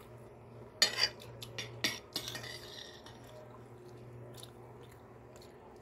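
Metal spoon clinking and scraping against a glass plate: a few sharp clicks in the first couple of seconds, then quieter.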